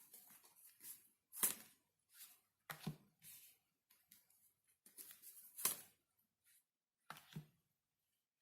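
Tarot cards being handled and laid down on a table: faint rustling and sliding, with four sharper slaps of cards spread through.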